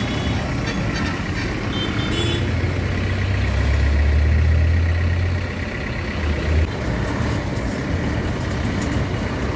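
A truck engine running close by amid road traffic. The low rumble grows louder about three and a half seconds in and drops back near seven seconds.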